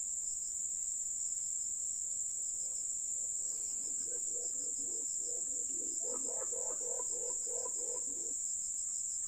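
Steady high-pitched drone of forest insects, with a run of quick repeated low bird notes from about two and a half seconds in until near the end.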